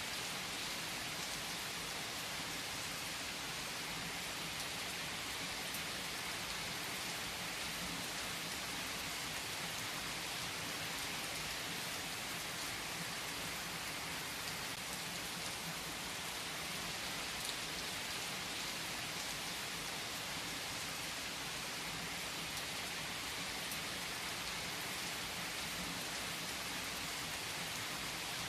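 Steady rain falling, an even hiss with a few faint drop ticks here and there.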